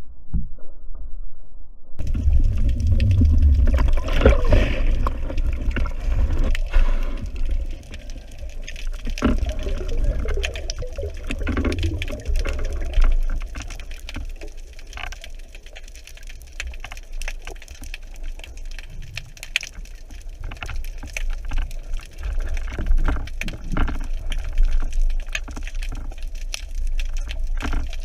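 Underwater water noise heard through a camera housing: a low rumble and rushing of moving water, with scattered clicks and crackles.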